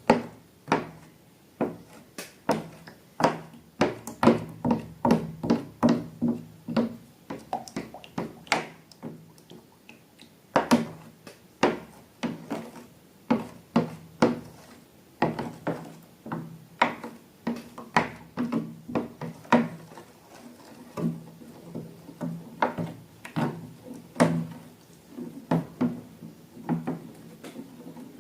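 Slime being handled and mixed, making an irregular string of short clicks and taps, about two a second.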